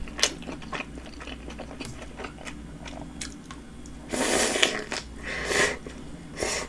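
A person chewing a Subway flatbread sandwich with small wet clicks, then biting into it about four seconds in: a loud crunching bite, followed by more crunching about a second later and a short crunch near the end.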